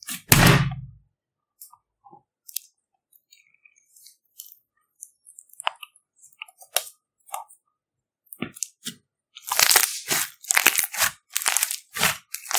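Fluffy slime being stretched and squeezed by hand, its trapped air crackling and popping. One loud thud just after the start, then scattered small pops, then dense, continuous crackling from about ten seconds in as the slime is kneaded.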